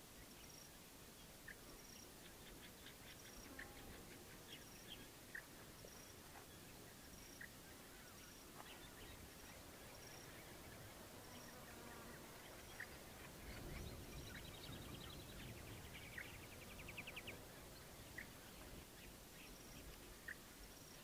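Faint outdoor field ambience of insects and small birds: a short high insect chirp repeating a little more than once a second, scattered brief bird chirps, and a fast pulsed trill about two-thirds of the way through.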